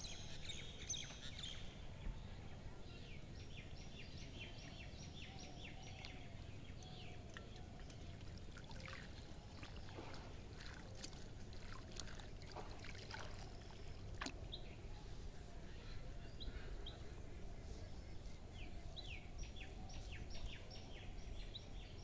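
Water sloshing and splashing as someone wades in a pond and pulls weeds from a bamboo fish trap by hand, with scattered bird chirps over a faint steady background noise.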